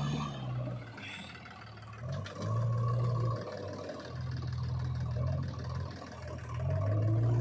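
Diesel engines of a JCB 3DX backhoe loader and a Sonalika tractor running, with the engine note rising in surges about two seconds in, about four seconds in, and near the end as the loader lifts and tips its bucket.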